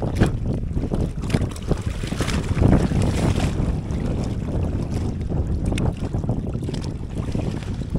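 Wind noise on the microphone over seawater sloshing and splashing irregularly around people wading chest-deep and pushing a bamboo raft.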